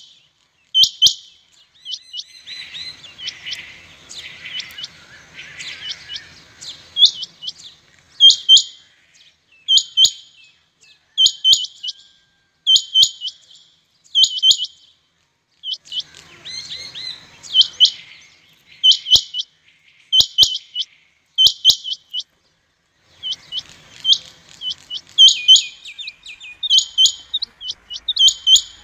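Male rain quail calling: a sharp, high double note repeated every one to two seconds, with softer chattering underneath at times.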